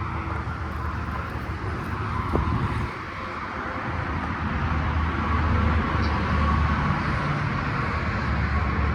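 Outdoor air-conditioning condenser units running: a steady fan whoosh over a low compressor hum, growing a little louder about four seconds in.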